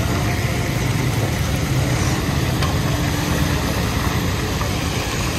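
Masala-battered fish deep-frying in large woks of hot oil: a steady sizzling hiss over a loud, low, steady rumble.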